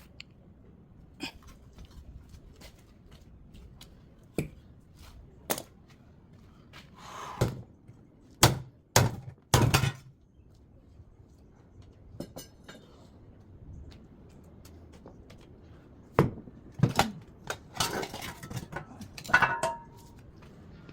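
Irregular knocks, clicks and clanks of hand tools on the metal and plastic parts of a top-loading washing machine being dismantled for scrap. The loudest strikes come in a quick cluster about halfway in and in another run near the end.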